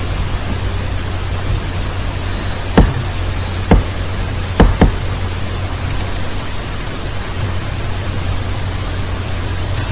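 Steady hiss and low hum of the recording microphone, broken by four short, sharp clicks: one about three seconds in, another nearly a second later, then a quick pair close together.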